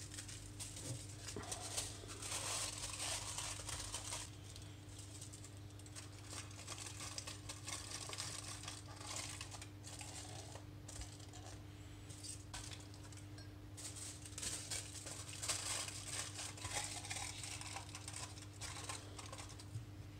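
Aluminium foil crinkling as sheets are handled and pressed down over the mouths of glass beakers. The crackling is loudest about two to four seconds in and again from about fourteen to nineteen seconds in, over a steady low hum.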